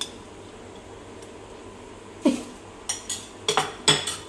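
A spoon clinking sharply against a bowl four or five times in the second half, as minced garlic is spooned into a seasoning mix. Just before the clinks comes a short sound sliding down in pitch.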